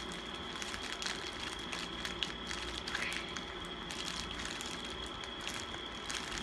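Faint handling noise of fingers working at a snack box to open it: small scattered clicks and scratches over a low hiss, with a steady faint high whine.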